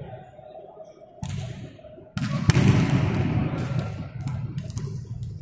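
A volleyball being struck hard during a rally, with sharp slaps of hands on the ball about a second in and again just after two seconds, echoing in a large sports hall. A swell of voices and hall noise follows the second hits.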